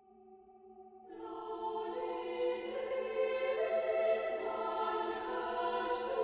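Background music of slow, held chords with a choir-like sound. It fades in, and fuller parts join about a second in.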